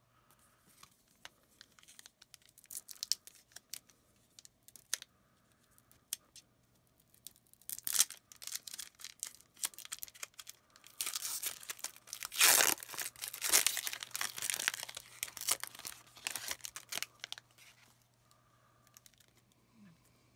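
An Upper Deck Series 1 hockey card pack wrapper being torn open and crinkled. Scattered light crackles come first, then a sharp rip about eight seconds in, then a longer, louder stretch of tearing and crumpling in the second half.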